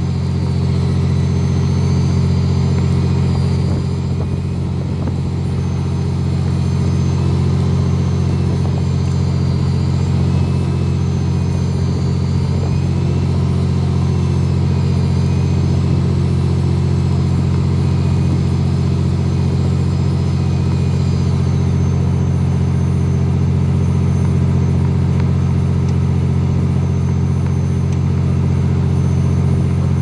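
Fishing boat's engine running with a steady low drone. A faint wavering whine rides above it, rising and falling, and fades out about two-thirds of the way through.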